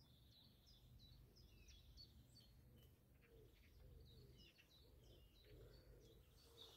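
Faint songbird singing: a quick run of short, high chirping notes, continuing throughout, over a low steady hum.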